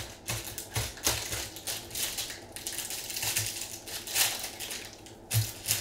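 Foil trading-card pack wrapper crinkling and rustling as gloved hands open it and handle the cards, with irregular clicks and a few soft low knocks.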